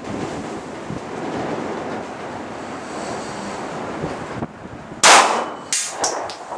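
Two gunshots about two-thirds of a second apart, each a sharp crack with a ringing tail, the first the louder. Wind rushes on the microphone before them.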